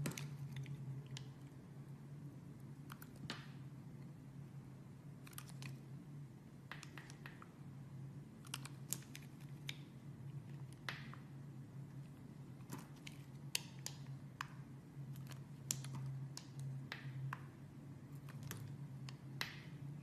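Razor blade cutting into a block of soap: irregular crisp clicks and short scraping strokes as the blade slices and pieces break off. A steady low hum runs underneath.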